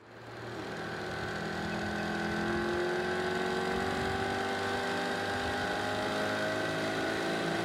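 Outboard motor on a small boat running steadily, its pitch creeping slowly upward. It fades in over about the first second.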